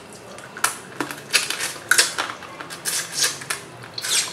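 Close-up eating sounds from a shrimp and crab seafood boil eaten by hand: shells being peeled and cracked, with chewing, sucking and lip smacking. They come as an irregular string of sharp clicks and short smacks.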